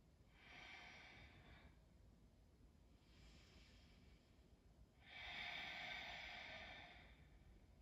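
Faint, slow breathing of a woman: three breaths, a short one near the start, a fainter one about three seconds in, and a longer, louder one about five seconds in.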